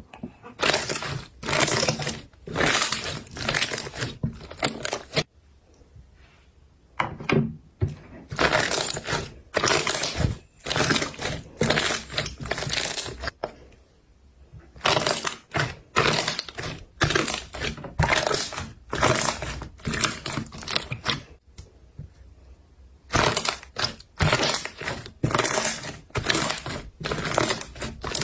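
Slime being squeezed and pressed, making dense crackling and popping in bursts, broken by a few short pauses.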